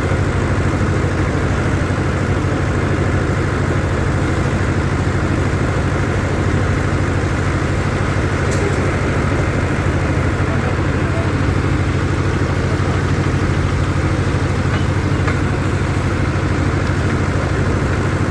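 Excavator's diesel engine idling steadily, an even low drone that does not rise or fall.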